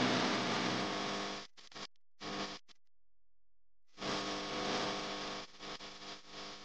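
Steady drone of a towboat's engine pushing barges, a hum of several steady tones with hiss on top. It cuts out abruptly about a second and a half in, with a couple of short snatches, and comes back about four seconds in.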